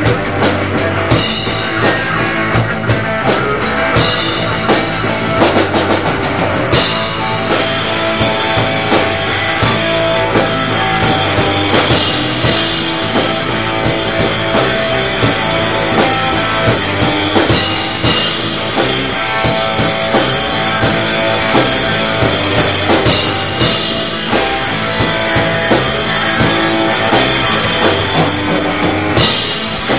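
Garage punk band playing a song on two electric guitars, bass and drum kit, recorded on a boombox.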